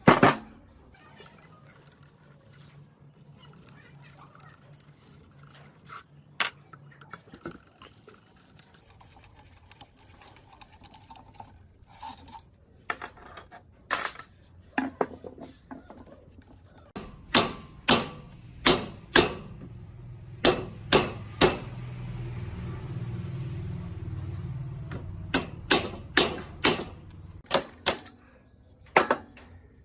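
Metal parts and tools being handled and knocked together while an old rusted cutting machine is worked on: a string of sharp clicks and knocks, thickest in the second half, with a low hum swelling and fading near the end.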